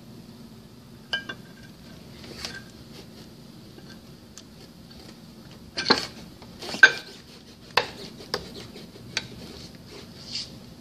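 Metal parts of a centrifugal pump and its mechanical seal gland plate clinking and knocking as they are fitted together by hand: about nine separate sharp clinks, the loudest about six and seven seconds in, over a faint steady hum.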